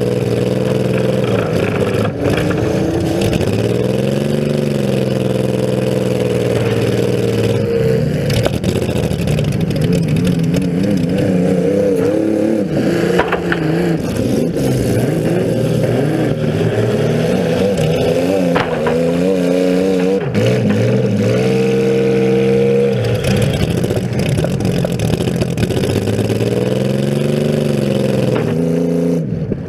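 Demolition derby compact car's engine running loud and being revved up and down again and again as it drives, with a few short knocks and clatters along the way.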